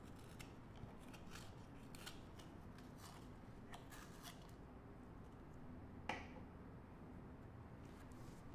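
Near silence with faint scattered clicks and small taps of objects being handled on a desk, and one sharper tap about six seconds in.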